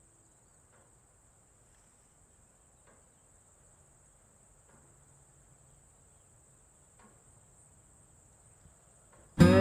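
Faint, steady, high-pitched chirring of insects such as crickets, with a few soft ticks. Just before the end, strummed acoustic guitar music comes in loudly.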